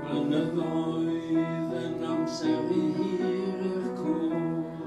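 Music: a song sung to instrumental accompaniment, with long held notes.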